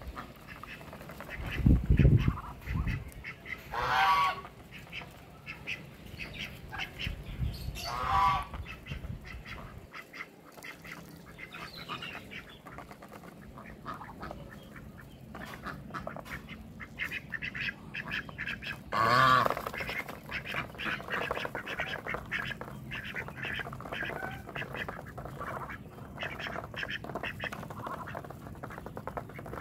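Domestic geese and ducks calling: loud calls about four and eight seconds in and the loudest near twenty seconds, over many quick soft clicks and short calls as the birds peck and dabble at a tray of water. A dull thump comes about two seconds in.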